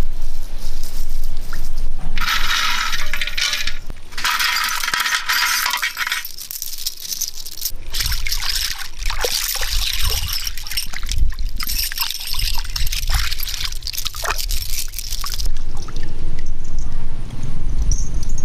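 Metal jewellery (gold chains, bangles and strings of beads) clinking and rattling in the hands, alongside water pouring and splashing. Two spells of rushing, pouring noise come first, then a run of quick clinks for several seconds.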